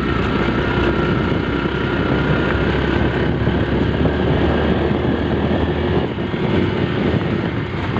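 Motorcycle engine running steadily under way, mixed with a steady rush of wind over the microphone.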